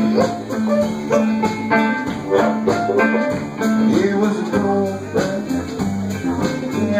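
Blues band playing live: amplified harmonica wailing and bending notes over electric guitar, banjo and a steady drum beat.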